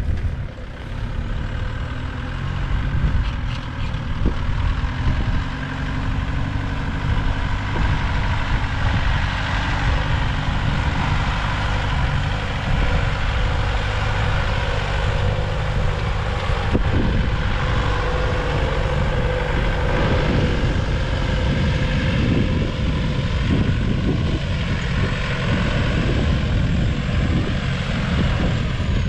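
Off-road 4x4 vehicle engine running steadily over a deep low rumble.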